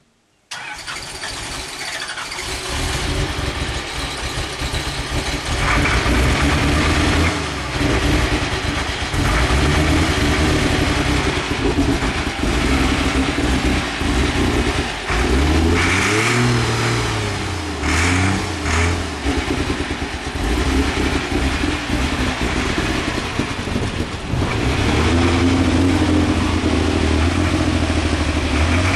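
Diesel super stock pulling tractor engine starting up suddenly about half a second in, on its first start after winter storage. It then runs loud, the revs rising and falling a few times around the middle before settling into a steady run.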